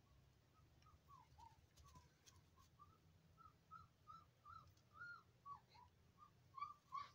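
Young puppy whimpering: a string of short, thin, high-pitched whines that bend up and down in pitch. They come faster and louder near the end, as yelps.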